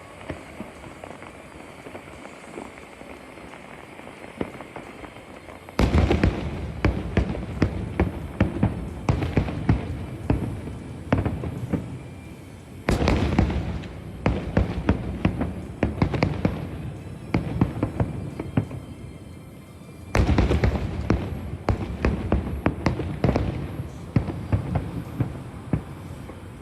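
Fireworks bursting overhead in three volleys of rapid, dense bangs, each lasting several seconds: the first begins about six seconds in, the next about thirteen seconds in and the last about twenty seconds in.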